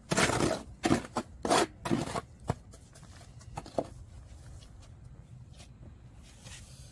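Mason's trowel scraping mortar against cement blocks: four short rough scrapes in the first two seconds, then a few light taps.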